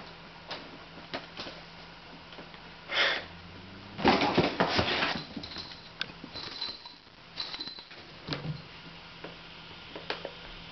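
Two cats scuffling in a cardboard box: a short burst about three seconds in, then about a second of loud scrambling, followed by scattered soft knocks.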